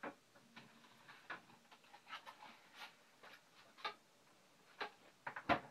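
Scattered light clicks and knocks of kitchen items being handled while someone fetches an ingredient, at uneven spacing, with the loudest knock near the end.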